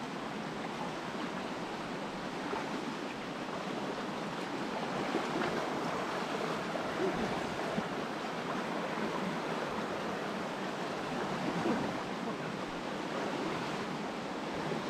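River water rushing and swirling in a fast current close to the microphone: a steady rushing noise with small splashes here and there.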